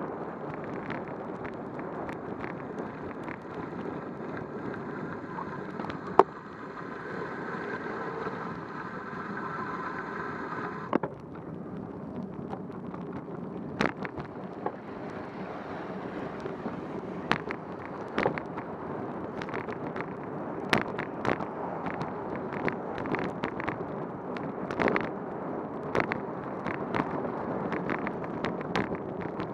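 Steady rush of wind and wet-road noise recorded from a bicycle-mounted camera riding in the rain, with frequent sharp ticks and knocks. For a few seconds early on a steady whine with several pitches sits over it and cuts off suddenly.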